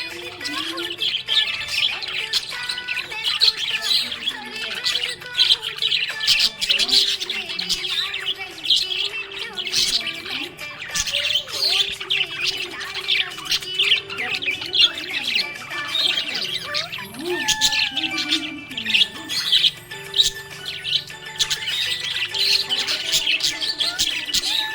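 Budgerigars chirping and warbling without a break: a dense, rapid stream of high chirps and short squawky notes.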